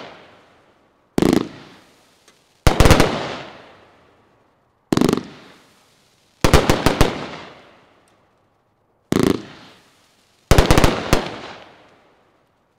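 A 36-shot 500 g consumer fireworks cake (Hall of Fame) firing in volleys: a single thump, then about a second and a half later a quick cluster of loud bangs with a fading rumble, three times over. The pattern matches the cake's build, which fires a whole row of tubes at once and uses slow fuse to delay the next row.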